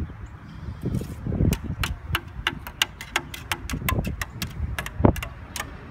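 A twig tapping on the wooden slats of a park bench like a xylophone: a quick, irregular run of light clicks, several each second.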